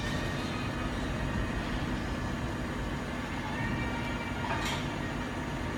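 Steady running noise of a BGA rework station's fans, with one short high squeak about four and a half seconds in.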